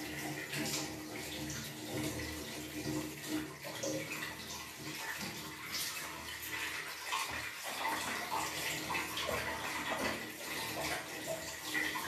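Water running from a tap into a ceramic bathroom washbasin, with uneven splashing as hands are rinsed under the stream.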